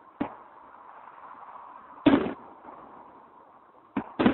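Fireworks going off: a sharp bang just after the start, a loud one about two seconds in, and two more in quick succession near the end.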